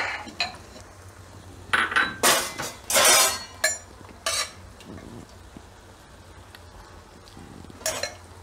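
Steel ladle clinking and scraping against the inside of a pressure cooker pot while scooping out boiled chickpeas: a handful of short clanks and scrapes, bunched in the first half.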